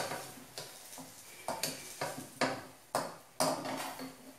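Slotted metal spatula tapping and scraping against a frying pan as a crepioca is pressed and moved in the pan: about seven sharp, irregularly spaced taps.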